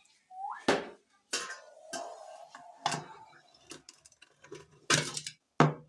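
Metal pots and cooking utensils knocking and clinking, several sharp knocks about a second apart.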